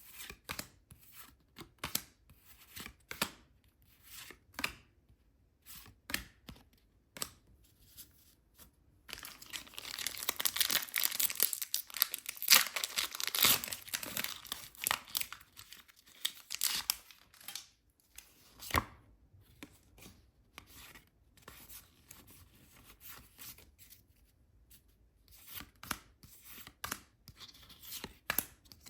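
Pokémon card packaging being opened by hand: scattered crinkles and clicks of handling, then about eight seconds of continuous tearing and crinkling of wrapping starting around nine seconds in, easing back to occasional rustles and clicks.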